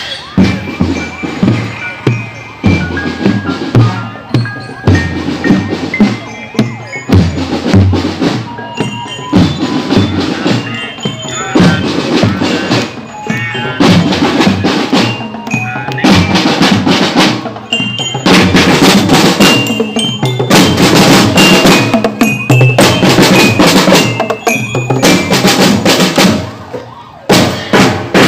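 Marching drum band playing live: a glockenspiel-type bell melody over snare and bass drums. The drumming grows denser and louder about two-thirds of the way through, then briefly drops off just before the end.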